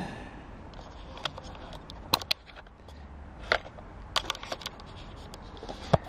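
Scattered light clicks and taps of small hard objects being handled, coming irregularly a few times a second at most, over a low steady room background.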